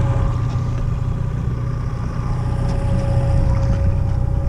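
Boat engine running steadily: a constant low rumble with an even higher tone held over it.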